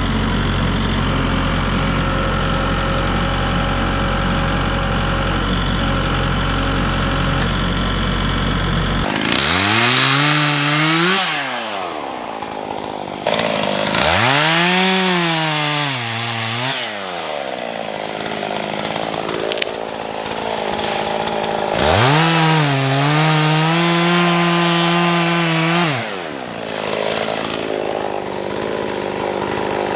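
A Kubota MX5400 tractor's diesel engine runs steadily, then stops abruptly about nine seconds in. A chainsaw then revs up and back down three times, the third rev held high for several seconds.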